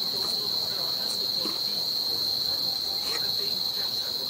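Steady high-pitched insect drone, a constant unbroken whine, with a few faint scrapes of hands spreading wet cement mortar.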